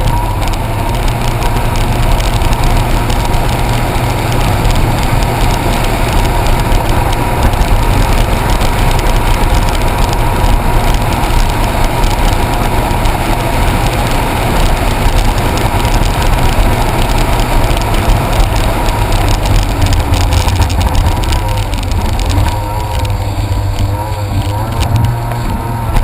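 Jet ski engine running steadily under way, loud throughout, its pitch wavering a little near the end.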